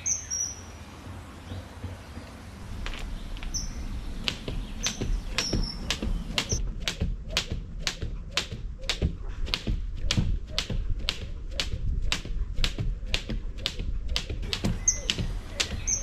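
Skipping with a jump rope: the rope slaps the ground in a steady rhythm, about two to three strikes a second, sparse at first and settling into a regular pace after a few seconds. Short bird chirps come now and then.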